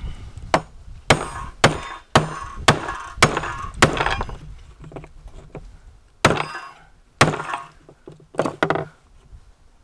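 Repeated sharp blows on an electronic component from a circuit board, beating it to break it apart for scrap metal, with crunching and clinking of the pieces. About seven blows come roughly twice a second, then after a pause a few more, two of them close together near the end; the part is not coming apart easily.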